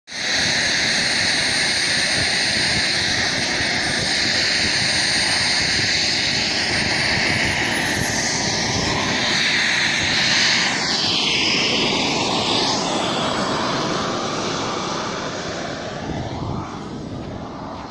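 RC jet's model turbine engine running loud and steady, with a thin high whine that rises in pitch about halfway through. The sound fades over the last few seconds as the jet moves away down the runway.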